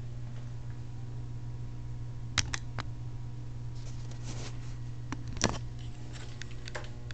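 Handling noise from a video camera being picked up: a few sharp clicks and knocks, the loudest about five and a half seconds in, over a steady low hum in a small room.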